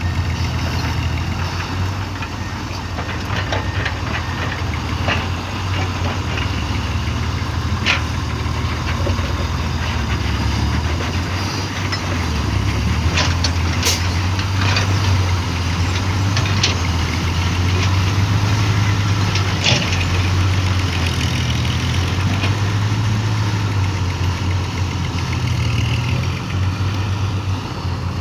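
Diesel engine of a heavy dump truck loaded with soil, running steadily at low revs without cutting out, with a few sharp clicks or knocks now and then.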